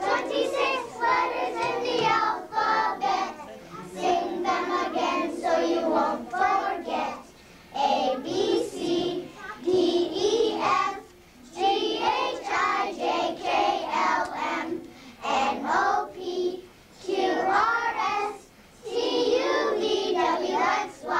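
A kindergarten class of young children singing a song together, phrase after phrase with short pauses between lines.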